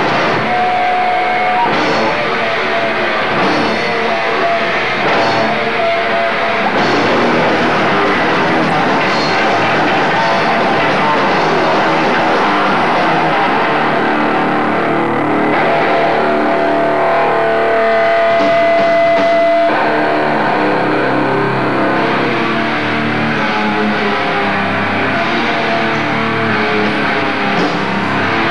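Live death metal band playing: distorted electric guitars and a drum kit, loud and dense, with a long held note a little past the middle.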